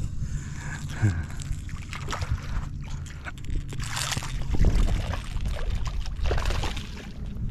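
A hooked trout splashing and thrashing at the water surface beside a kayak, loudest about four seconds in, over a steady low rumble.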